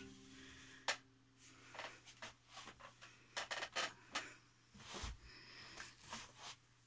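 Faint, scattered clicks and rustles, a dozen or so short ones spread over a few seconds, as the last sustained guitar tones die away.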